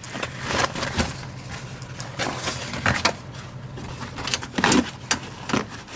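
Plastic insulating sheet being peeled off a car's inner door panel, with irregular crinkling and crackling and a few sharper snaps as it pulls away.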